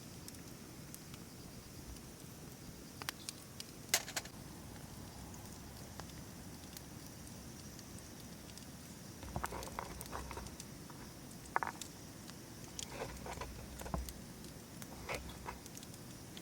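Wood campfire crackling faintly, with scattered sharp pops. A strong pop comes about four seconds in, and a cluster of clicks and knocks follows from about nine seconds on.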